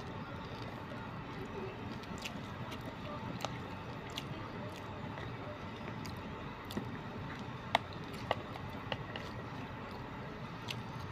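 Close-up eating sounds: a person chewing a mouthful of rice, with scattered sharp clicks as a plastic spoon scrapes and taps a plastic food container.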